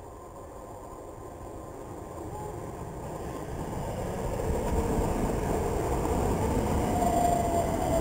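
Electric multiple-unit passenger train approaching and running past close by, its rumble growing louder over the first few seconds and then holding steady. Near the end a high whine sets in, falling slightly in pitch.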